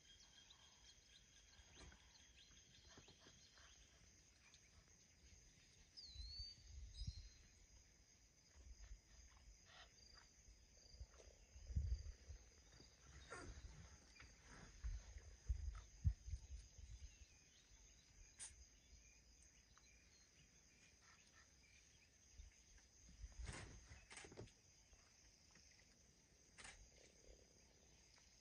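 Quiet natural ambience of steady insect chirring, with a short bird chirp about six seconds in and scattered faint clicks. A few low dull thumps, the loudest sounds, come around the middle and again near the end.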